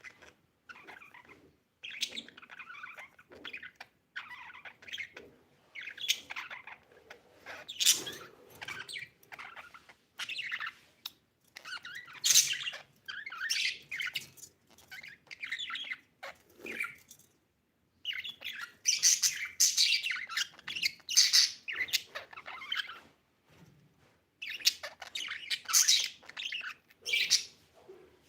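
Budgerigar chirping in irregular bursts of high chirps with short pauses between them.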